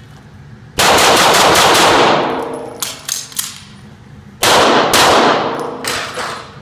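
Pistol fired in quick strings of shots: a fast run starting about a second in, then shorter groups of two to four shots, each shot ringing on in the echo of an indoor range.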